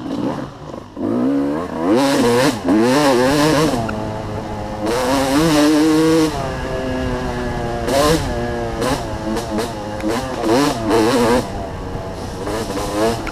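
Off-road dirt bike engine revving hard and easing off again and again under the rider's throttle, heard close up from the rider's helmet. Its pitch climbs in surges about two, five and eight seconds in and drops back between them.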